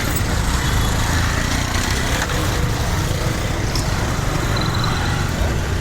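City road traffic: vehicle engines running and passing in a steady low rumble.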